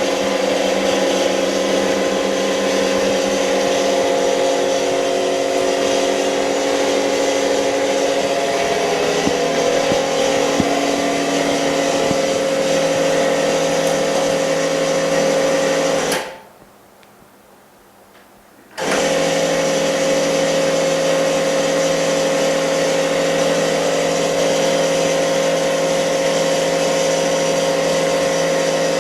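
Electric machine motor or pump running with a steady, loud hum of several fixed tones. It cuts off about 16 seconds in and starts again about two and a half seconds later.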